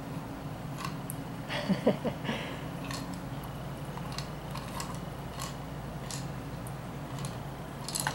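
Plastic treat-dispensing ball wobbling and rolling on a tile floor as a kitten paws at it, with scattered light clicks and taps from the ball and the treats inside. A louder scrape-and-knock cluster comes about two seconds in.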